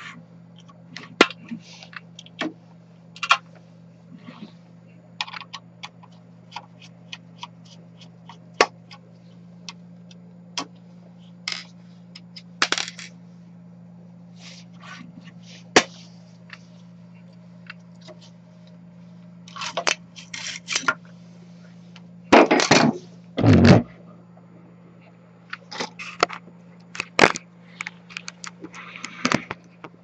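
Handling the perforated build plate of an UP! Plus 2 3D printer: scattered clicks, taps and scrapes as it is unclipped and slid off the platform, over a steady low hum. A few louder bursts of clatter and rustle come about two-thirds through.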